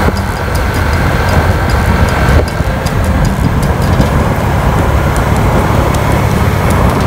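A vehicle travelling along a road: steady, loud engine and road noise, with light rapid clicks or rattles throughout.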